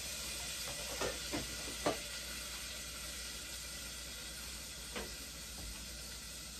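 Butter melting and sizzling in a hot pot over a gas flame, a steady hiss, with a few light taps of a utensil against the pot as it is stirred, three about a second or two in and one near the five-second mark.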